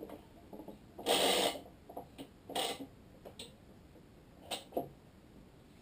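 Badminton string pulled through the racket frame on a stringing machine: a rushing swish about a second in, then two shorter ones. Two sharp clicks follow near the end as the string is set in the machine's tensioner.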